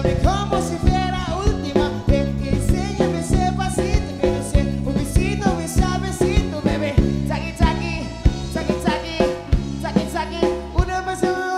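Latin pop band music with a drum kit, electric guitar and keyboard over a steady dance beat, with a male voice singing. The bass drops out briefly near the end.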